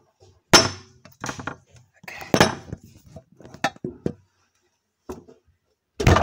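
Dishes and cutlery clinking and clattering in a string of separate, irregular knocks, like things being moved about. A loud clatter comes near the end.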